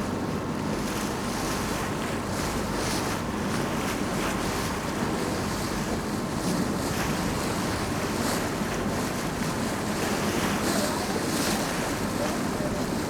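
Wind buffeting the microphone and water rushing along the hull of a moving tour boat, with the boat's engine running steadily underneath. The rush swells and eases every second or two.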